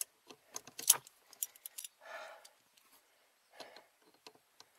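Light metallic clinks and rattles from hand work on a 1996 Ford Mustang's steering shaft and column under the dashboard, with a quick run of sharp clicks in the first two seconds and softer rustling twice after.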